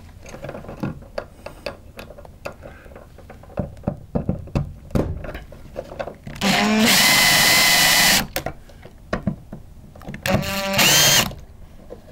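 Power screwdriver driving a light switch's mounting screws into a metal electrical box. There is one steady run of about two seconds, a shorter run rising in pitch near the end, and small clicks of handling in between.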